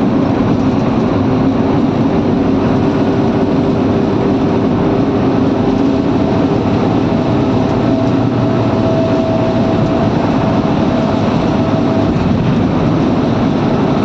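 Steady engine drone and road noise of a vehicle travelling at highway speed, heard from on board.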